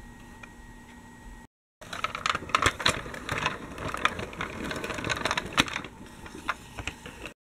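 Dickie Toys City Liner toy tram rolling along plastic toy track, its plastic wheels rattling and clicking over the track. A dense run of clicks lasts about four seconds, then thins to scattered clicks.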